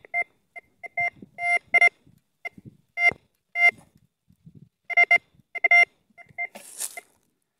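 Metal detector giving a choppy, broken run of short beeps as its coil passes over a target, the chopped signal the detectorist reads as a coin. A brief scratchy noise comes near the end.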